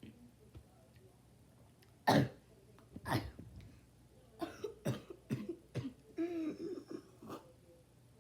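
A person coughing several times: two loud coughs about two and three seconds in, then a run of shorter, quieter ones.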